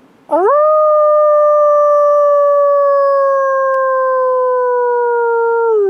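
A man howling like a wolf through cupped hands: one long, steady howl that starts with a quick upward swoop, slides slowly lower, and drops in pitch near the end.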